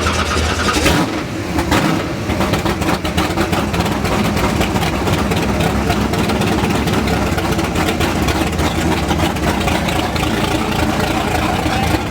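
Loud car engine running steadily, with a sharp, louder moment about a second in.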